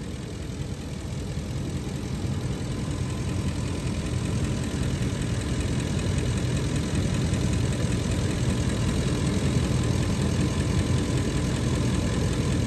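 Ford E-350's gasoline engine idling steadily, heard from the open engine bay, growing a little louder over the first few seconds.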